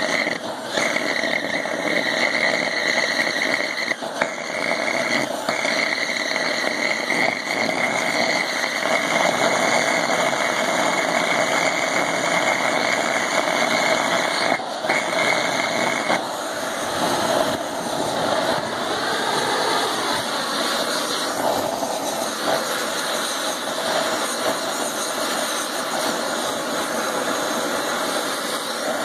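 Homemade waste-oil forge burner running with a steady roar of flame, while a hose-fed gas torch heats its oil vaporiser. A high, steady hiss rides on top of the roar and drops out about sixteen seconds in, and the roar carries on.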